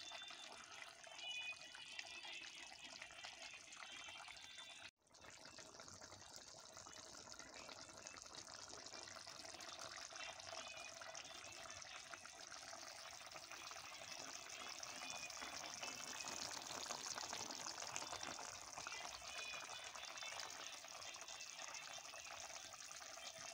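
Buffalo curry simmering in a karahi: faint, steady bubbling of the thick gravy, briefly cutting out about five seconds in.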